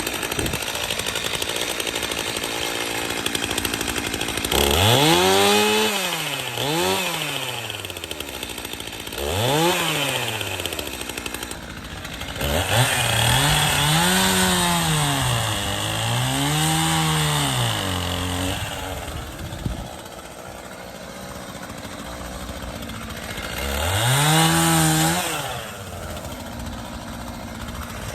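Gas chainsaw idling and revved up again and again, bucking firewood poles into rounds: several rises to full throttle that fall back, with a long run of revving in the middle and a spell of idle near the end.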